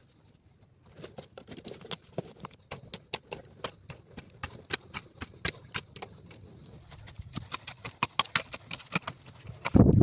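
A rapid, irregular series of light knocks and clicks, a few a second, growing denser near the end.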